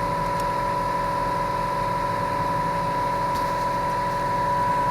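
An engine idling steadily, with a constant high whine over a low rumble.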